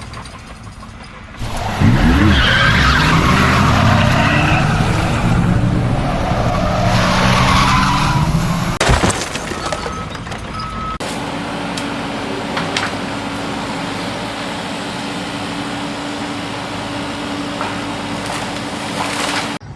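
A car engine revving up and down with tyres squealing for about seven seconds; then, after a cut, a steadier, quieter engine drone with a held hum.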